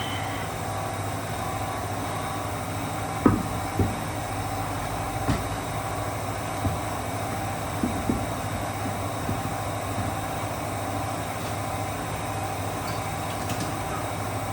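A steady mechanical hum, with a handful of short knocks between about three and eight seconds in.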